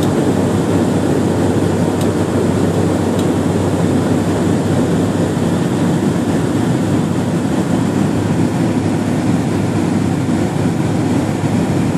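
Steady, loud cabin noise inside a turboprop airliner on approach with its landing gear down: the drone of the engines and propellers mixed with rushing air, with a faint low hum under it.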